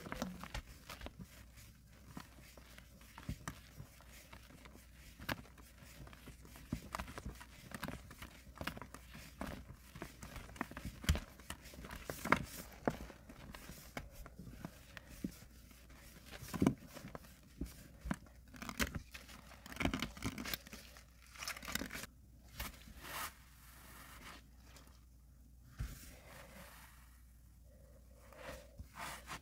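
Gloved hands squishing and swirling thick soapy paste, giving a dense run of irregular wet crackles and squelches as the bubbles in the paste pop. Near the end a sponge is pressed down into the paste, and the crackles thin out.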